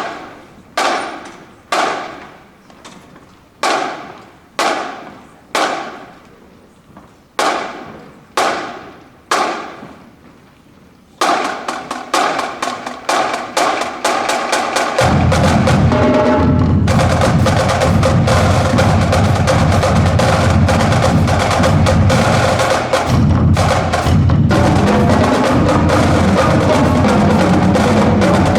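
Marching band drumline in a gymnasium. It opens with a steady count of single sharp clicks, about one a second, each ringing out in the hall's echo. About eleven seconds in, the drumline starts a fast cadence, and bass drums join a few seconds later, with the full drumline playing loudly.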